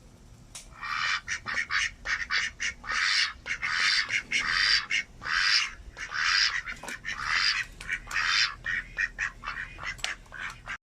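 Male domestic duck (drake) calling in a rapid series of short, hoarse quacks, some drawn out a little longer, which cut off suddenly near the end.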